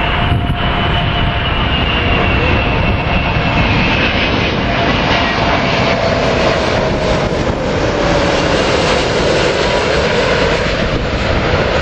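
Airbus A380's four jet engines running in a steady, loud roar, with whining tones that slowly drop in pitch.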